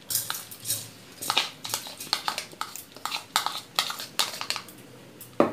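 Soaked rice being tipped from a plastic bowl into a metal mixer-grinder jar, the bowl knocking and scraping against the jar's rim in a string of irregular clicks, with one louder knock near the end.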